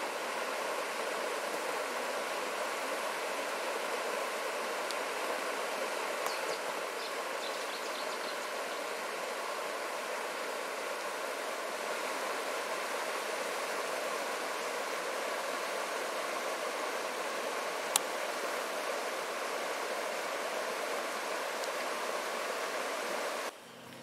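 River water rushing and splashing over rocks in a shallow cascade, a steady, unbroken sound. One sharp click about three-quarters of the way through.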